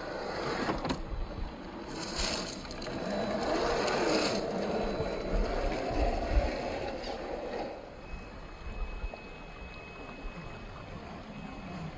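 Drone of RC rock crawlers' electric motors and geartrains driving over rock, mixed with wind noise. It swells a few seconds in and drops away near the end, leaving a faint steady whine.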